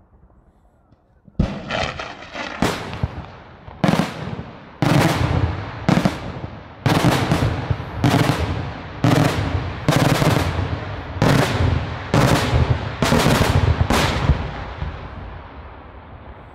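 Daytime aerial firework shells bursting: after a quiet start, a run of loud bangs begins about a second and a half in and goes on at roughly one a second, each trailing off in echo, then dies away near the end.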